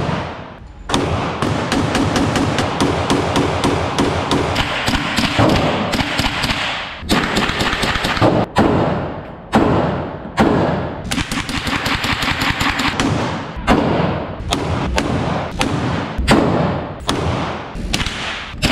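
Gunfire: a dense, rapid string of shots for the first several seconds, then shots at irregular intervals of about one or two a second, each ringing on into the next.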